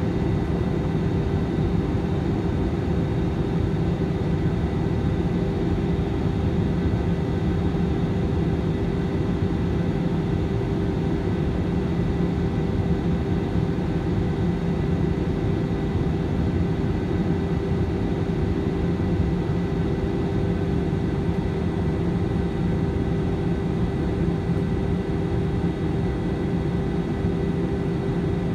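Jet airliner's turbofan engines and airflow heard from inside the cabin beside the wing: a steady drone with a constant hum, unchanging throughout.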